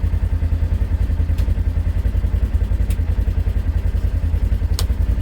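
Polaris General UTV engine idling with a steady, fast-pulsing low rumble. Three short sharp clicks sound over it, the last the loudest.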